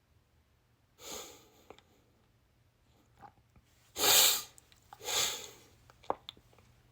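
A person's short, sharp nasal breaths, three in all, the second one the loudest, with a few small clicks between them.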